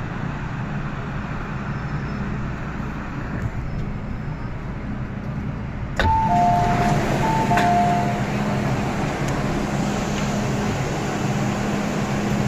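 Inside an MTR M-train at the station: a steady low hum of the train. About halfway there is an abrupt click, then the door chime sounds a high-low two-note ding-dong twice, as the doors open onto the platform.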